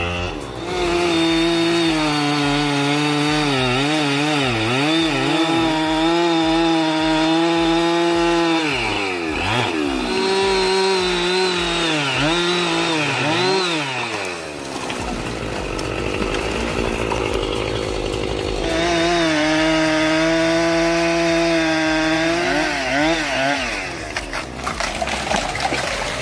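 Two-stroke chainsaw cutting: the engine runs at high revs, its pitch dipping and recovering as the chain loads in the cut. It drops back twice, once for a few seconds midway, then cuts again, and a few sharp knocks or cracks come near the end.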